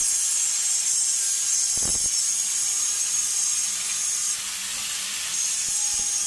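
Angle grinder grinding the face of a granite strip to roughen it so the adhesive will grip: a loud, steady, high-pitched grinding hiss with a thin whine, easing slightly for about a second past the four-second mark.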